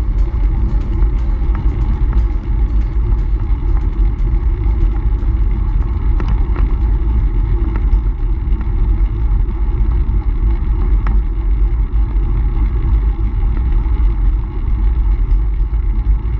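Steady wind rumble on a bike-mounted action camera's microphone while riding a road bike at speed.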